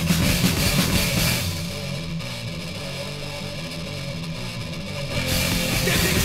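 Death/thrash metal recording with distorted guitars and drum kit. About a second and a half in, the music drops to a quieter, duller stretch without its bright top end. The full band returns loud about five seconds in.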